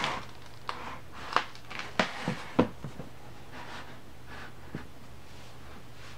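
Hardcover sound book being handled: a soft rustle as it closes, then a series of sharp knocks and taps as the book is turned over and laid down, the loudest three in the middle of the clip.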